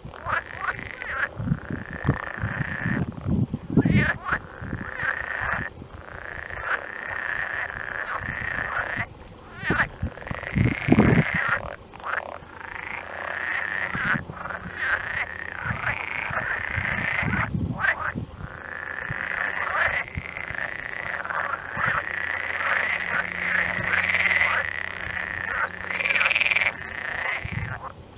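A dense chorus of many frogs calling at once, fast pulsed calls overlapping without a break. Low rumbles rise through it a few times and are the loudest moments.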